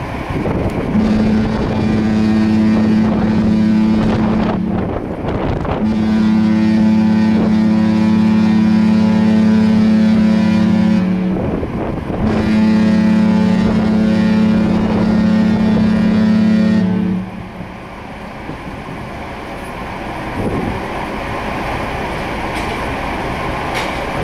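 Cruise ship's horn sounding three long, deep blasts with short gaps between them, then stopping. It is heard over steady wind on the microphone.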